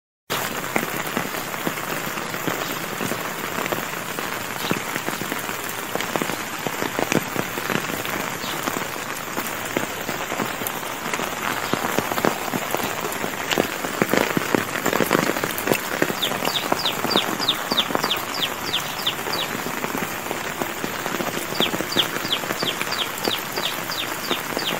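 Heavy rain falling steadily on wet ground, with muddy runoff water flowing along the field's channels. About two-thirds of the way in, a rapid run of short high chirps starts, about four a second, breaks off briefly and then resumes.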